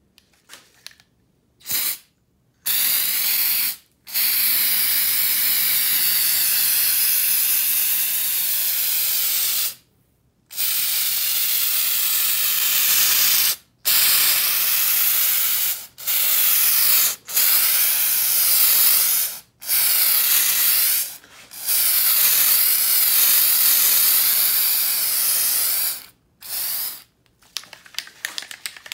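Aerosol spray can spraying black coating: a steady hiss in long sprays of one to six seconds, broken by brief pauses, with a few short puffs near the start and the end.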